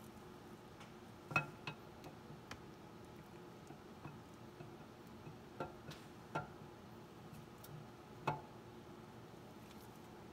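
Light metallic clicks and taps as a camshaft is slid by hand into an engine block, its lobes and journals knocking against the cam bearings. The clicks are scattered and irregular, the loudest about a second and a half in and again about eight seconds in.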